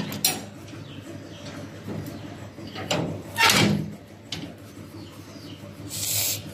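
Wrought-iron grille door being handled and fastened by hand: a few clanks and knocks of the metal, the loudest about three and a half seconds in, and a short hissing scrape near the end.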